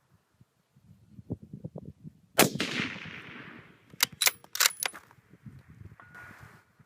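A single 6mm Creedmoor rifle shot through a muzzle brake, a sharp crack with about a second of echo, about two and a half seconds in. Roughly a second and a half later comes a quick run of sharp metallic clicks as the bolt is worked.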